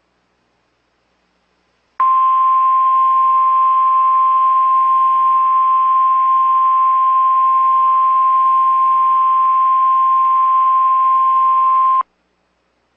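Emergency alert attention tone: the single steady 1050 Hz NOAA Weather Radio warning alarm tone, sounding for ten seconds. It starts abruptly about two seconds in and cuts off sharply, the signal that a National Weather Service warning message follows.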